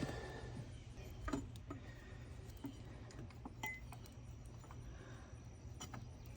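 A few faint, scattered metallic clinks of a ratchet and socket knocking against engine parts, over a low steady hum.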